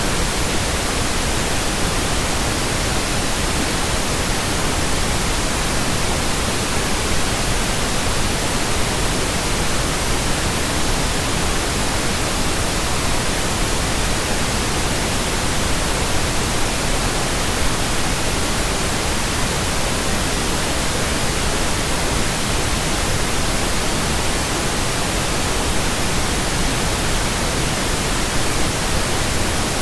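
Electronically generated pink noise: a steady, even hiss spread across all pitches, with no tones, breaks or changes.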